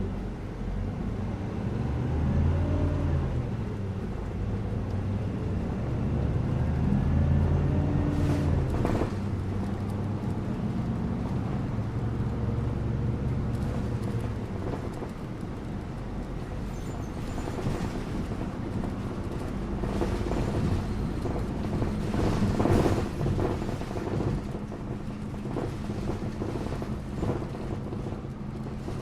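City bus interior, heard from the passenger cabin: the engine hum rises and falls in pitch through the first half as the bus speeds up and slows, then settles into a steady drone with road rumble. The loudest knock comes about 23 seconds in, with another cluster of knocks and rattles about 8 to 9 seconds in.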